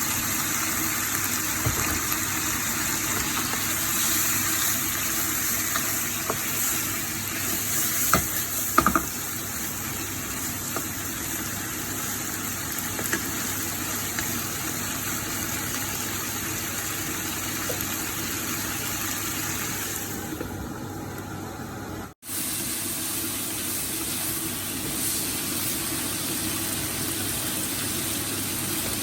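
Food sizzling as it is stir-fried in a hot pan, a steady hiss with a few sharp utensil clinks about eight to nine seconds in. The sound drops out for an instant a little over twenty seconds in, then the sizzling carries on.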